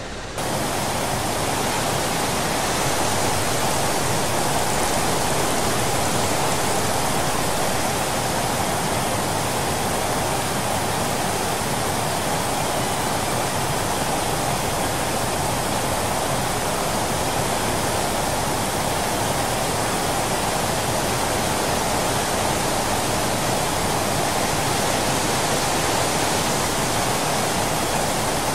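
Steady rush of a large volume of water pouring through a dam's open spillway gates, with no change in level throughout.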